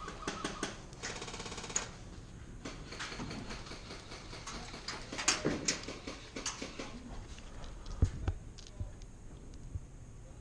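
Airsoft gunfire: a rapid full-auto burst of clicking shots lasting under a second about a second in, with scattered single shots and clicks before and after, and a low thump near the end.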